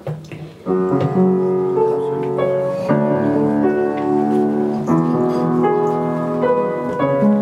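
Piano playing an introduction of held chords, beginning just under a second in, the chords changing every second or two.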